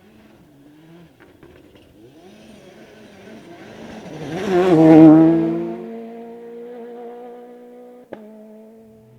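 Two-wheel-drive rally car approaching and passing at speed, its engine growing to a loud peak about five seconds in, then holding a steady note as it pulls away. A single sharp crack near the end.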